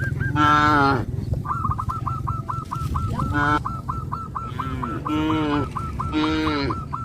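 Geese honking: several longer falling honks over a rapid run of short, high repeated calls, about four a second, with a steady low hum underneath.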